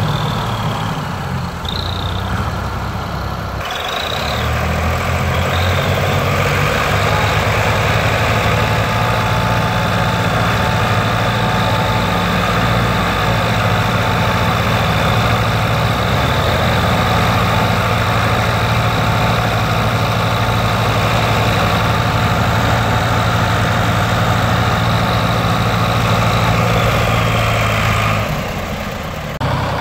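Diesel tractor engines working hard under load, pulling a loaded trolley that is stuck in mud, in a steady low drone. The sound changes abruptly about three and a half seconds in and eases near the end.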